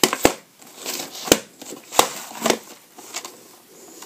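Plastic VHS cassette and its clamshell case being handled: about five sharp plastic clicks and knocks with light rustling between them.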